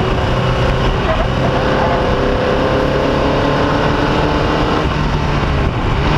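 Formula Vee racing car's air-cooled Volkswagen flat-four engine running hard under load, heard from onboard the car. The engine note climbs slowly, then falls away just before five seconds in.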